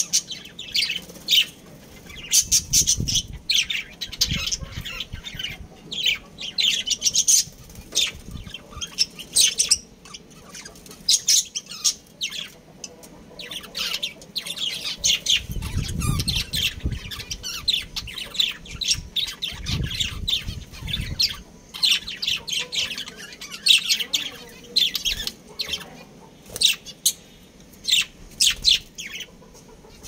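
Aviary birds, budgerigars among them, chirping and squawking in many short, high calls that overlap. A few low, muffled thumps come in between.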